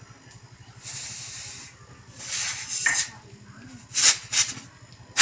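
Refrigerator compressor humming steadily while compressed air hisses out of the open condenser line in several short bursts, the first about a second long, as the line is held shut and let go to pressure-test the new condenser's welds for leaks.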